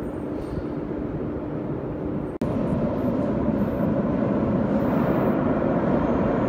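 Metro train running in the station, a steady low rumble. There is an abrupt cut a little over two seconds in, after which the rumble is louder and keeps building.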